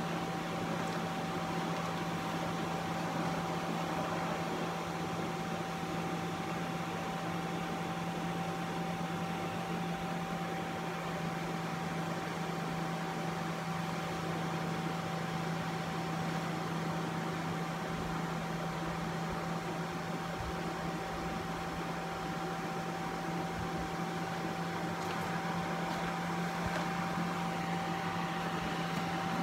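Electric air blower running steadily with a constant hum, inflating an inflatable water slide.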